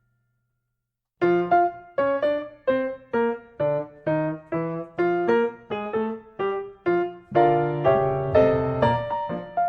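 Background piano music. It starts after about a second of silence with single notes struck in an even rhythm, about two or three a second, and moves into fuller sustained chords about seven seconds in.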